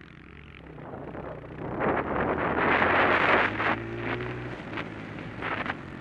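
Honda CRF125 dirt bike's single-cylinder four-stroke engine running steadily, with wind rushing over the microphone that swells loudest about two to four seconds in.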